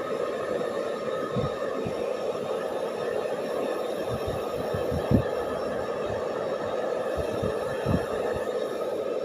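Hair dryer running steadily, a constant blowing whir, with a few soft low thumps from handling, the strongest about five seconds in.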